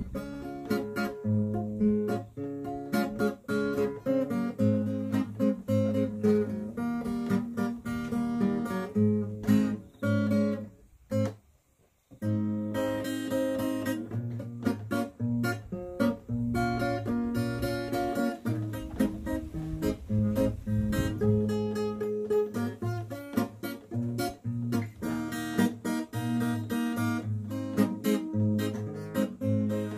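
Acoustic guitar playing a tune, with a break of about a second near the middle where it drops almost to silence.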